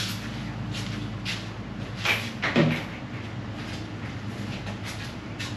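Light knocks and a short rattle about two seconds in, from things being handled off to one side, over a steady low hum.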